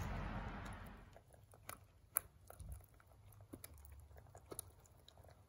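A hen pecking at mealworms and grain in a plastic tub: scattered sharp taps of its beak on the food and the plastic, one louder tap a little after two seconds in. Before that, for about the first second, there is a steady outdoor hiss.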